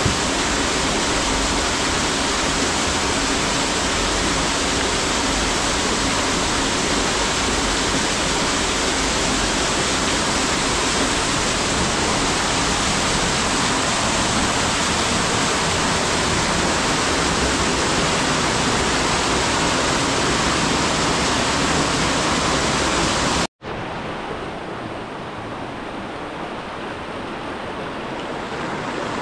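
Steady rushing noise that drops out abruptly about 23 seconds in, then carries on quieter and duller.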